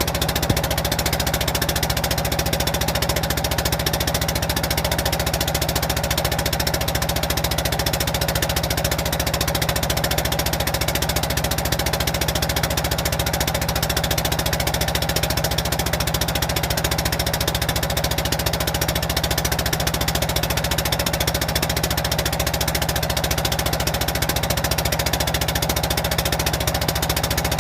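An engine running steadily, a constant even drone with no change in speed.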